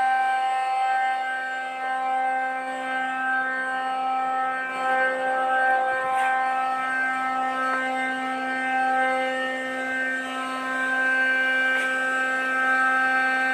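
Large electric air compressor running at load, a steady whine at one unchanging pitch with many overtones, building air pressure up towards about 7.8 bar.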